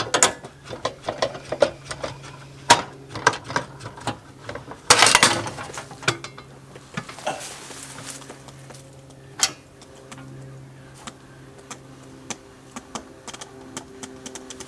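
Metal hand tools and awning-arm hardware clinking and knocking in quick, irregular clicks, with a short harsh burst about five seconds in.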